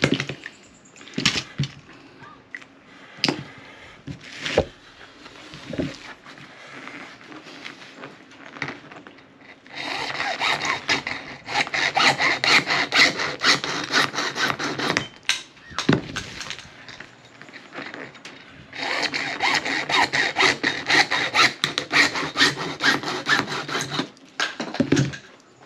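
Hand hacksaw cutting through white PVC pipe in two spells of rapid back-and-forth strokes, about five seconds each. Before them, scattered clicks and knocks of the pipe and tools being handled.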